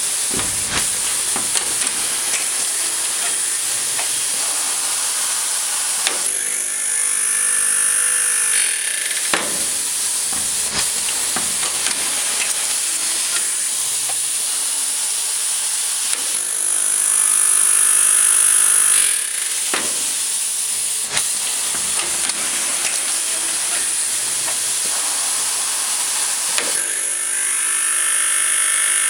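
Electroimpact E6000 automated fastening machine running its lockbolt installation and collar-swaging cycle. A steady air hiss runs throughout. Roughly every ten seconds a louder whining hiss swells for about two and a half seconds, and sharp clicks and knocks fall between these swells.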